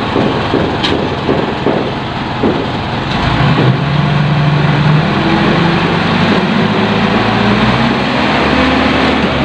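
Small diesel dump truck's engine idling with an even knock, then picking up about three seconds in to a steady higher hum as the engine drives the hydraulic hoist to tip the loaded bed.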